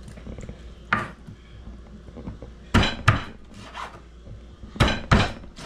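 Kitchen knife chopping raw chicken necks on a wooden cutting board: five sharp knocks of the blade on the wood, one about a second in, then two quick pairs.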